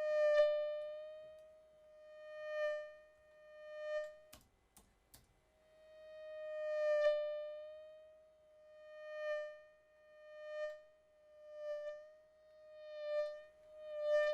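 Synthesized mosquito buzz: a steady, high, nasal whine with many overtones that repeatedly swells louder and fades away, like a mosquito flying close past the ear and off again. It drops out briefly with a few clicks about four seconds in, then the swells resume.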